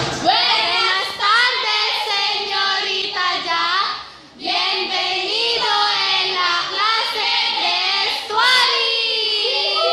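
A young girl's voice singing a melody in long held, gliding notes, with a brief break about four seconds in.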